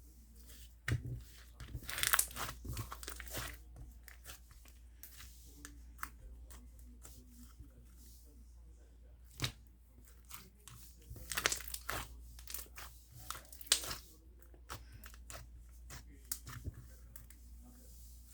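Slime being squished, stretched and pressed by hand: irregular crackling pops and tearing clicks, with louder bursts of crackling now and then.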